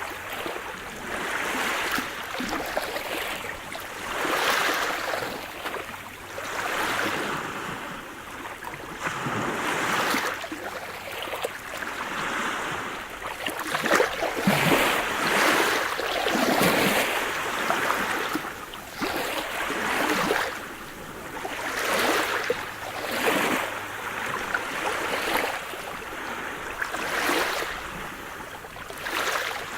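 Sea surf: waves washing in and breaking one after another, the rush swelling and fading every couple of seconds.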